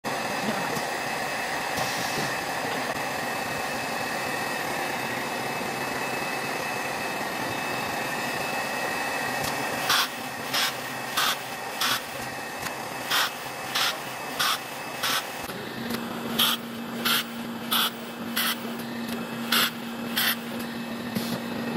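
Steady hum of the automated battery-module line, with a few held whining tones. From about halfway, a 6,000-watt laser welding head fires a rapid series of short, sharp bursts, roughly one every two-thirds of a second, as it welds the busbars to the battery terminal poles. A low steady hum joins near the end.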